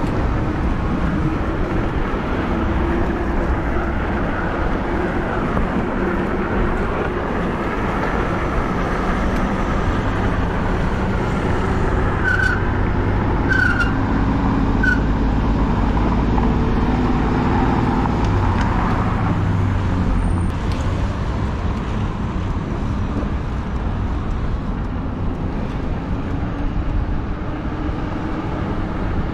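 Road traffic passing by, heard from a moving e-bike, with a low wind rumble on the microphone. Near the middle come three short high chirps, a little over a second apart.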